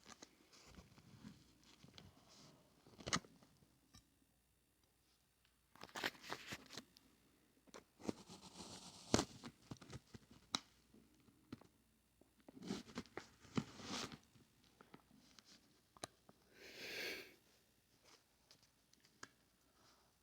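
Scattered handling sounds of food packaging being opened: crinkling and tearing with sharp clicks and knocks, and a longer rustle about seventeen seconds in.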